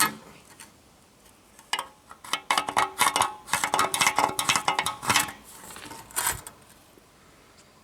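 Light metallic clinks, taps and scrapes of a rule and marker being handled against a metal tailgate panel while a hole position is marked out, in a busy run that stops about six seconds in.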